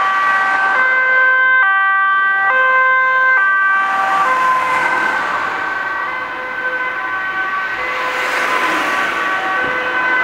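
Dutch ambulance's two-tone siren, switching between a high and a low note a little under a second each: the warning signal of an ambulance on an urgent A1 run. It dips slightly about six seconds in, then grows again.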